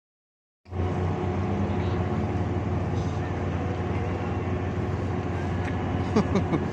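Small motorboat's engine running steadily as the boat approaches. The sound cuts in suddenly about half a second in, and a few brief higher sounds come near the end.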